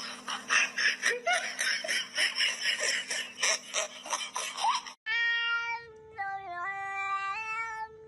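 Cat sounds. First come short meows over a noisy, clattering background. After an abrupt cut, a cat gives one long drawn-out yowl that holds its pitch and shifts up and down in steps.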